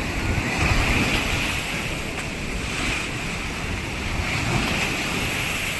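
Sea surf washing onto a beach, swelling about a second in, with wind buffeting the microphone.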